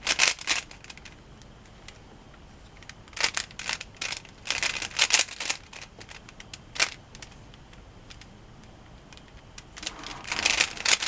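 A plastic Rubik's cube being turned by hand: quick runs of clicking, clacking layer turns in several short bursts, with pauses between them.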